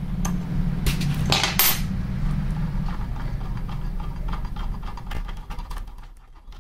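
Metal clinks and clicks of an Allen key and the blade arbor bolt as the bolt is loosened and turned off a miter saw's spindle: a few sharp clinks in the first two seconds, then lighter ticks. A low hum runs underneath and fades about five seconds in.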